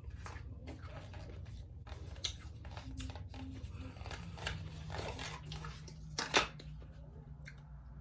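Wet eating sounds: chewing and mouth smacks on food with a few sharp clicks, and a low steady hum that comes in about halfway.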